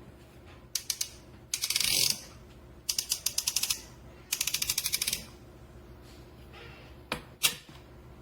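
Rapid ratcheting clicks in four short bursts, about ten clicks a second, then two single clicks: a conical burr coffee grinder's dial being turned through its click stops.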